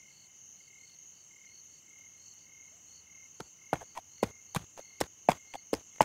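Night-time cricket ambience: a steady high trill with evenly pulsed chirps. About halfway through, a run of about ten sharp knocks starts at uneven intervals.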